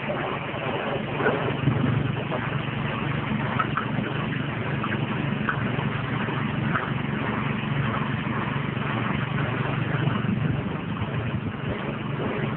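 Soybean-husk grinding machine driven by its 6.5 hp engine, running steadily with a constant low hum and faint scattered ticks.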